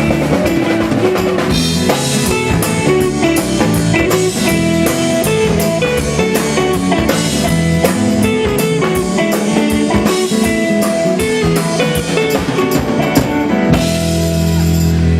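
Live rock band playing an instrumental passage: drum kit with rimshots over strummed guitars and bass. About fourteen seconds in, the drums stop and a held chord rings on.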